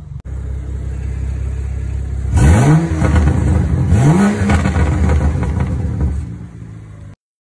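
BMW E90's N55 turbocharged inline-six on an MHD stage 2+ tune, idling, then blipped twice about a second and a half apart. Each rev rises and falls back to idle, with the exhaust burbling as the revs drop.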